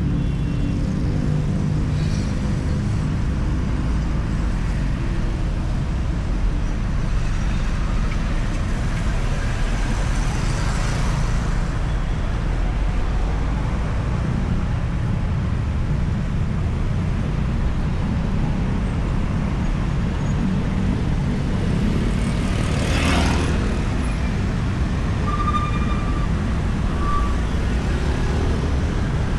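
Steady highway traffic: a continuous low rumble of engines and tyres on asphalt, with one vehicle passing close by with a rising and falling whoosh about three-quarters of the way through.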